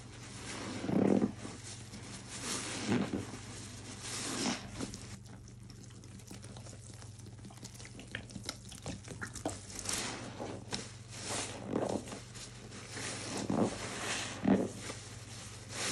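Wet, soapy sponges squelching as gloved hands squeeze and wring them over a bowl of suds, with water and foam running out. The squeezes come in repeated swells a second or two apart. A quieter stretch in the middle holds fine crackling of foam while water is poured onto a sponge.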